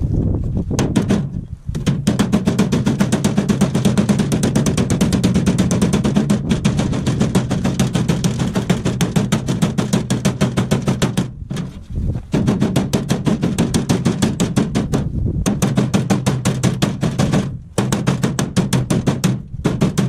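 Wire-feed (MIG) welder arc crackling and buzzing as a new sheet-steel lower door skin is welded on, in several runs of a few seconds each with brief pauses between.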